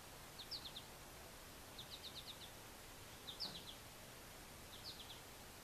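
Faint bird chirping: four short groups of three to five quick high notes, about a second and a half apart, over quiet outdoor background.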